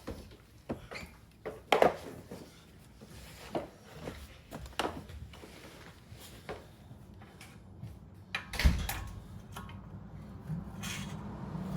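Scattered clunks, clicks and scrapes of hand work with tools on a car's rear suspension, loudest in two sharp knocks, one about two seconds in and one late on. A low steady hum comes in near the end.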